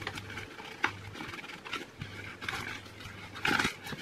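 A cup scooping flour and tipping it into a mixing bowl: short soft scrapes and rustles, with a longer, louder scrape about three and a half seconds in.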